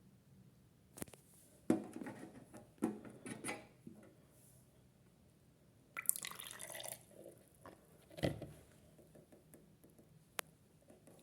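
Water splashing and dripping in a toy twin-tub washing machine, in a few short separate bursts with light knocks between them.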